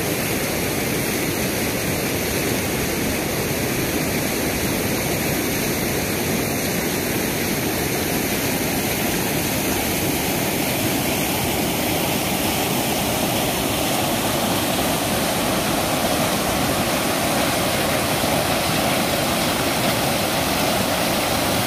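Floodwater from an overflowing dam rushing over rocks and across a submerged causeway: a steady, unbroken roar of water.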